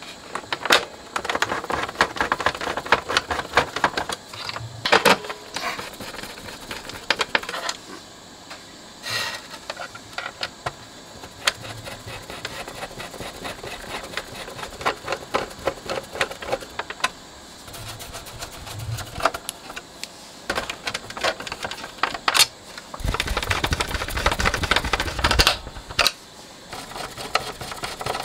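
Screws being driven into a plastic radio-cassette case with a hand screwdriver: several spells of rapid clicking and scraping, with knocks from handling the case. The clicking is loudest about three quarters of the way through.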